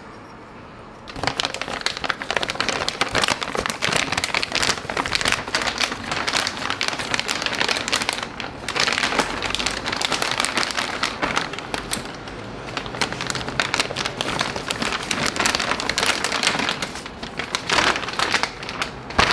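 Clear plastic packaging bag crinkling and rustling loudly as hands pull it off a folded bicycle. It starts about a second in and goes on with a couple of short lulls.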